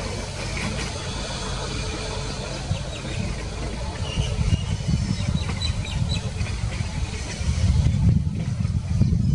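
Airbus A350's Rolls-Royce Trent XWB jet engines rumbling low as the airliner rolls along the runway, growing louder from about four seconds in.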